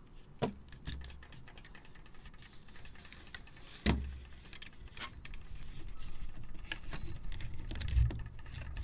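Stainless-steel wet-canvas carrier clips clicking and jangling as they are pushed onto the corners of two stacked canvases, with a louder knock about four seconds in.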